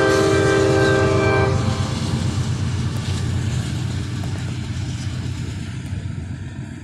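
Freight locomotive's air horn sounding a steady chord that cuts off about a second and a half in, followed by the low rumble of the train rolling past, slowly fading.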